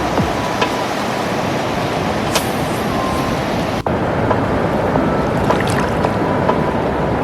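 Skykomish River water rushing: a loud, steady, even rush of flowing water, with a brief break a little under four seconds in.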